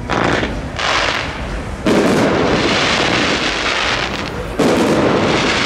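Fireworks going off: four sudden bursts, about at the start, near one second, near two seconds and about four and a half seconds in, each trailing off into a long noisy rush.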